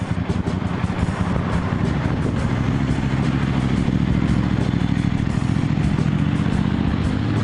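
Road traffic noise on a busy street, with a motor vehicle engine running close by as a steady low drone.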